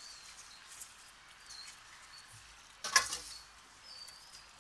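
Dogs at feeding time: about three seconds in, one short, sharp, loud noise, with a few faint, short, high chirps around it.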